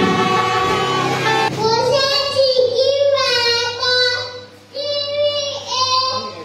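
Music with several steady notes at once, then from about a second and a half in a child singing solo in long held notes, with a short break a little past the middle.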